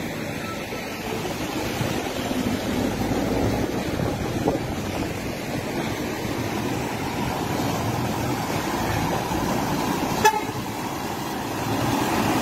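Vehicles driving through floodwater on a street: a steady rumble of engines and water. A short horn toot sounds about ten seconds in.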